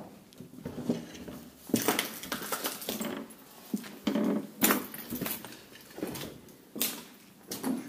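Irregular footsteps and scuffs on a tiled floor and stairs, with a few sharper knocks and thuds among them.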